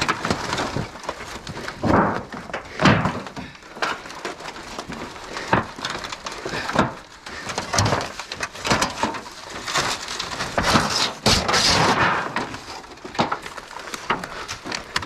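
Irregular crunching, snapping and knocking of dry wood and brush being trampled and moved about, with sharp cracks every second or so.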